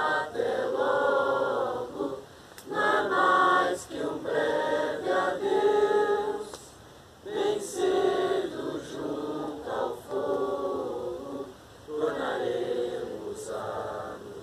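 A group of scouts singing together unaccompanied, several voices in unison, in phrases with short breaks between them.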